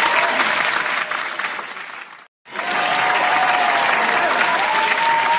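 Crowd applauding, dense clapping with a few voices calling out over it. The applause fades away about two seconds in, breaks off into a moment of silence, then starts again at full strength as the applause sound effect loops.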